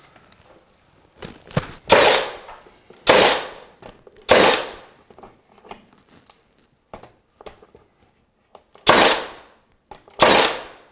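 Cordless finish nailer firing nails into flexible crown moulding: five loud shots, three about a second apart, then a pause of several seconds and two more, each with a short decaying tail.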